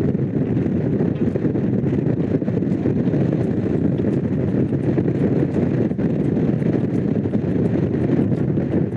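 Honda CX500's V-twin engine running at a steady cruise, mixed with wind rushing over the microphone.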